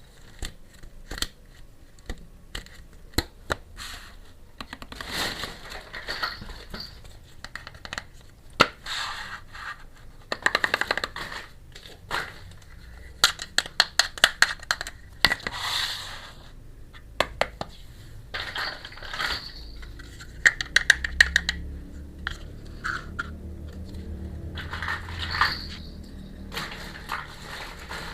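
Unboxing a miniature steel toy kitchen set: plastic packaging scraping, crinkling and tearing in repeated short stretches, mixed with many sharp clicks and taps of small parts being handled.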